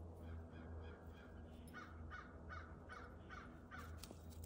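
An animal calling six times in a quick, even series of short pitched calls, about two and a half a second, faint over a steady low hum.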